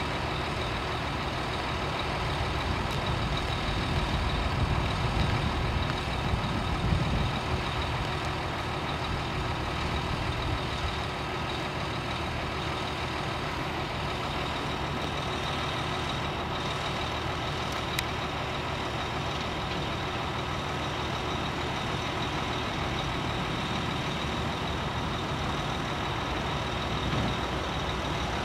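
Heavy diesel engine of earthmoving machinery running steadily, pulling harder for a few seconds about four seconds in, with a steady high whine over it and a single sharp click past the halfway mark.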